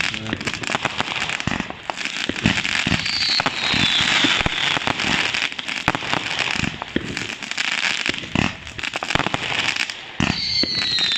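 Fireworks going off in a rapid barrage: many bangs over dense crackling from bursting stars. A falling whistle sounds about three seconds in, and another starts near the end.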